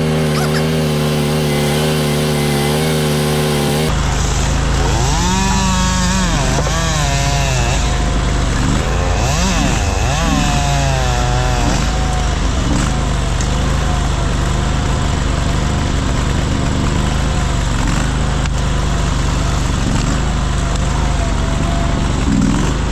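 Small engine running, holding a steady note for the first few seconds, then revving up and down again and again.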